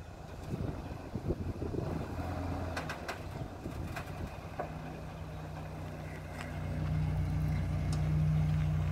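Toyota Land Cruiser 80 series engine running at low revs as the truck crawls over rough trail, growing louder from about two-thirds of the way in as it pulls harder. A few light clicks and knocks are heard along the way.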